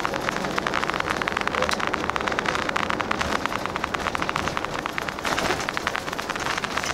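Highway coach heard from inside while under way: a steady rumble of engine and road noise, overlaid with a dense, rapid crackle.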